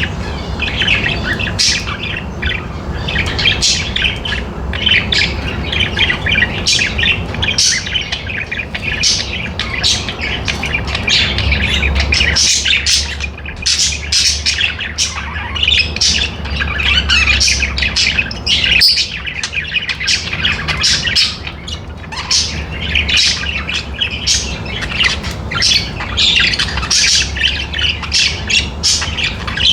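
A group of pet budgerigars chirping and squawking in continuous, overlapping chatter, over a steady low hum.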